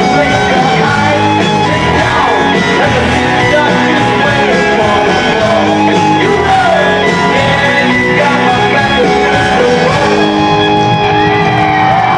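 Live rock band playing loudly, with electric guitar, drums and shouted vocals.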